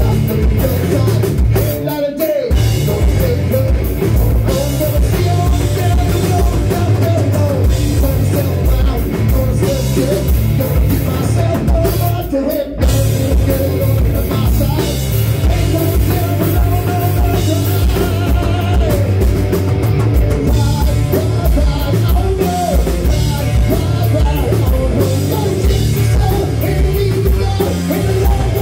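Live rock band playing loud and continuously: electric guitars, bass guitar and drum kit, with two momentary breaks in the band, about two seconds in and again about twelve seconds in.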